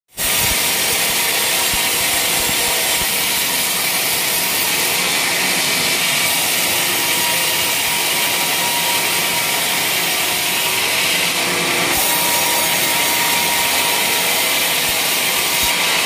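A band sawmill blade cutting lengthwise through a waru (hibiscus) log: a loud, steady, high hiss of sawing with a faint steady whine underneath.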